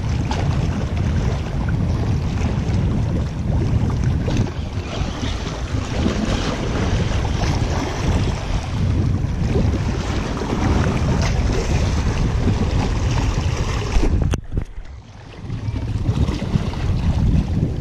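Wind buffeting the microphone, with sea surf against rocks beneath it. One sharp knock near the end, after which the wind noise briefly drops away and then comes back.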